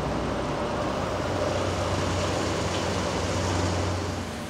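Forklift engine running steadily, a low drone that eases off near the end.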